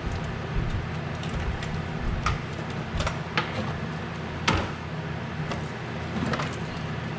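Scattered clicks and knocks, the loudest about four and a half seconds in, as a cover is unclipped and pulled off in a car's engine bay, over a steady low hum.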